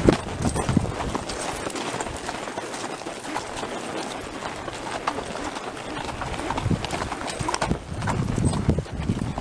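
Horses' hooves clip-clopping at a walk on a dirt and rock trail: several horses in a line, their footfalls overlapping in an irregular patter.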